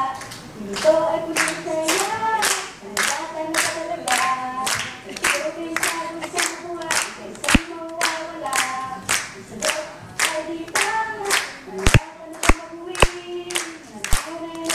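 A group of voices singing a chant together, with no instruments, over steady handclaps at about two to three a second. A few sharp thumps sound near the end.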